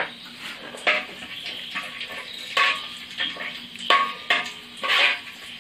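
A metal spoon scraping and clinking against a large aluminium pot in about half a dozen separate strokes, some with a short metallic ring, as whole spices are stirred in hot Dalda (hydrogenated vegetable fat).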